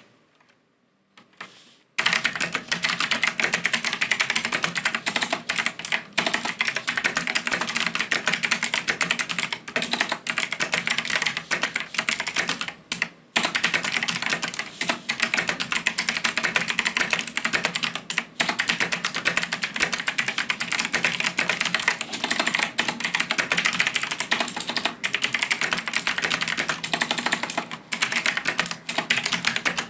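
Logitech G Pro X mechanical keyboard being typed on fast and continuously, a dense run of key clicks and clacks that starts about two seconds in, broken by a short pause about halfway through.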